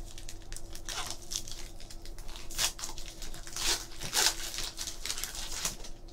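Foil wrapper of a Topps Chrome baseball card pack being torn open and crinkled by hand, in a run of irregular crackles and rips, loudest from about two and a half to four seconds in.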